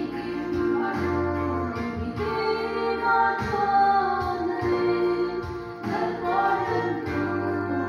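A woman singing a Mizo song into a microphone through a PA, backed by instrumental accompaniment.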